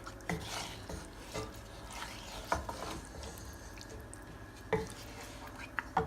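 A spoon stirring catfish curry in a cooking pot, with a handful of short scrapes and knocks against the pot.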